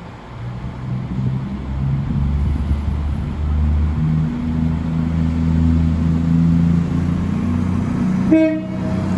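A train's engines running under power, growing louder over the first few seconds as it pulls away. About eight seconds in comes a short horn tone from a Class 390 Pendolino.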